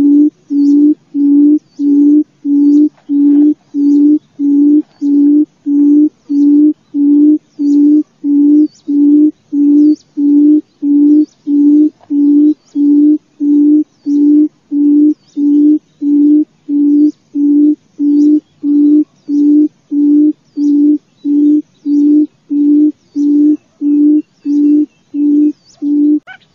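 Barred buttonquail's low booming call: one hooting note repeated evenly, about one and a half times a second.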